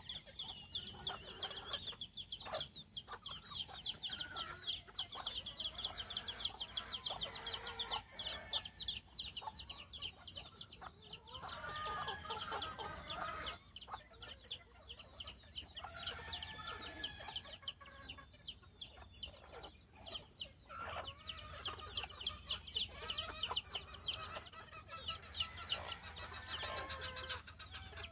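Gamefowl chickens clucking and calling, over a fast, high chirring.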